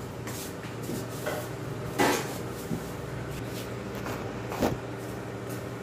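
A few light knocks and clinks of household objects, the loudest about two seconds in and another near the end, over a steady low hum.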